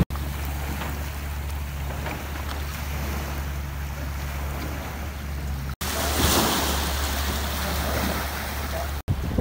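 Harbour water washing and swirling up a concrete slipway, with wind buffeting the microphone over a steady low hum. The sound breaks off abruptly twice.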